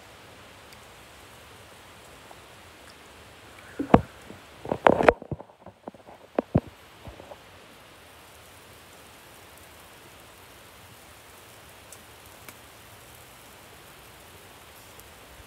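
Knocks and clicks from the phone being handled close up, in a cluster from about four to seven seconds in, over a steady hiss that runs throughout.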